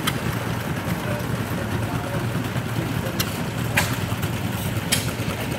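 Antique stationary engine running steadily, turning a flat belt that drives a centrifugal blower fan: a continuous low, noisy rumble with a few sharp clicks.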